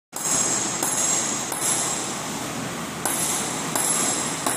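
Hammer blows on aluminium partition framing, six strikes mostly about 0.7 s apart with a short pause in the middle, each leaving a high metallic ring.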